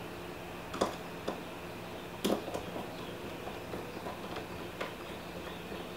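Small precision screwdriver turning a screw into a metal airsoft gearbox shell: a few scattered light clicks and ticks, the sharpest a little over two seconds in, over a faint steady hum.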